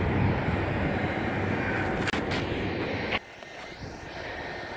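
Loud, rough rushing noise of jet aircraft heard over the airfield with wind buffeting the microphone. It cuts off abruptly about three seconds in, leaving a quieter steady hum with a faint whine.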